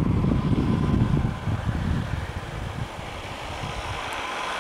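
Gusty wind rumble on the microphone that dies away after about a second and a half, then the growing hiss of a vehicle approaching along the road.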